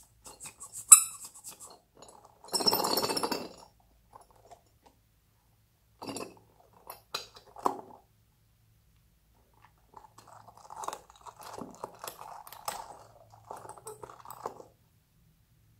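Hands handling a soft rubber spiky squeeze toy and a small clear plastic ball. There is a sharp click about a second in, then a short burst of crackly rubbing, scattered light taps and clicks, and a longer stretch of crackly squeezing and rubbing near the end.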